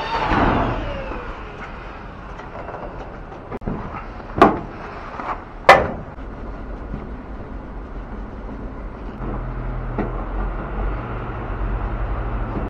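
Sheet-metal cover panel of a heat-pump water heater being handled and fitted back on, with two sharp knocks about a second apart, over a steady low hum. A falling tone fades out at the start.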